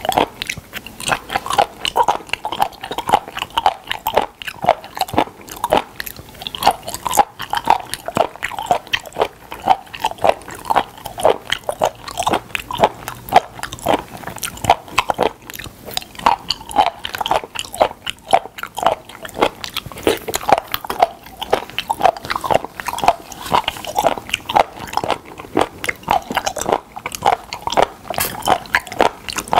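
Close-miked chewing of raw spoon worm (gaebul), with a steady rhythm of chews and bites.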